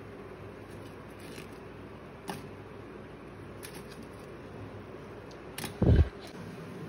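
Handling noise as fried bajji are moved about in a stainless steel mesh strainer: a faint click a couple of seconds in and a dull, heavy thump near the end, over a steady low background hum.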